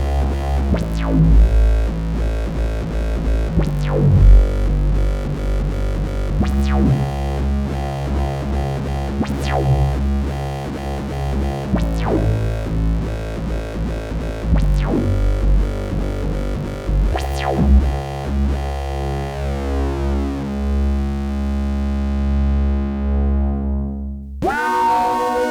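Pittsburgh Modular Taiga analog synthesizer playing sustained chords over a deep bass, with a bright sweeping attack every two to three seconds. Near the end the tone darkens as the highs die away, and a new chord with a falling sweep comes in about a second before the end.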